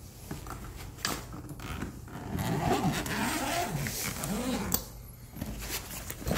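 Zipper of a soft fabric tool case being pulled open, a rasping run of a few seconds with the case rustling as it is handled, ending in a short knock as the lid is lifted.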